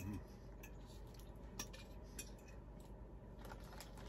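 Faint, scattered clicks and clinks of cutlery on dishware, a few light strikes a second or so apart.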